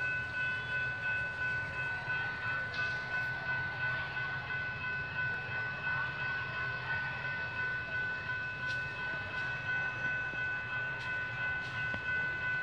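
Diesel locomotive running with a steady high whine over a low engine throb that pulses about twice a second. A few faint clicks come near the end.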